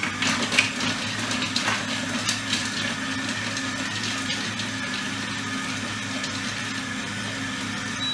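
Monsieur Cuisine food processor running steadily at speed 5 with a steady whine as it chops garlic. Halved garlic cloves clatter against the spinning blade in the first couple of seconds. A short beep sounds at the very end.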